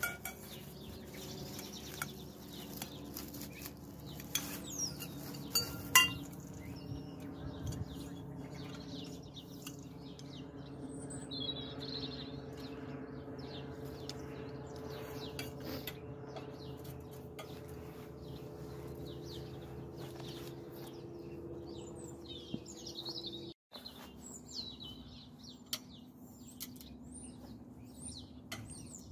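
Several light clicks and clinks from plastic pipe hoops and small fittings being handled, the sharpest about six seconds in. Small birds chirp through the later part over a steady low hum.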